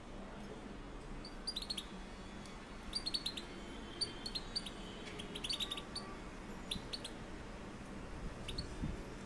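Young caged European goldfinches chirping: short, sharp high notes in quick clusters of three or four, repeated every second or so.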